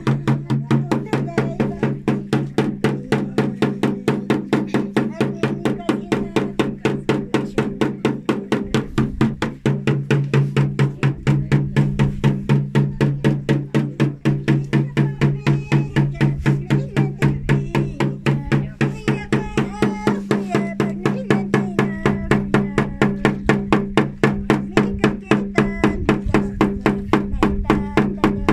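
Music with a fast, even percussion beat of about four strikes a second over steady low held notes.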